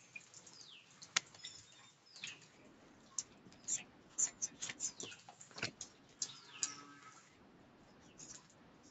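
Birds chirping: short high calls that fall in pitch, repeated every second or so, with a couple of sharp clicks. A faint voice of a student answering comes through the video call.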